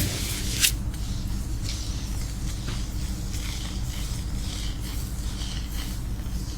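Fingers scratching and rubbing through hair and scalp during a hair wash, making soft, irregular scratchy rustles, with one sharper brief rustle about half a second in. A steady low hum runs underneath.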